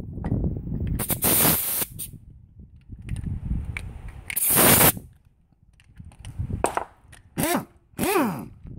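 Pneumatic ratchet on the 13 mm strut-mount nuts, run in short bursts: two bursts of air hiss, then short whines that rise and fall in pitch near the end as the motor spins up and slows.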